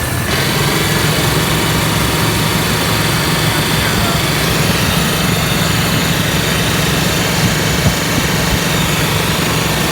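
A Chevy 4.3 V6 idling steadily with its belt-driven Sanden compressor working as an onboard air pump. A steady hiss comes in about a quarter-second in and holds over the engine.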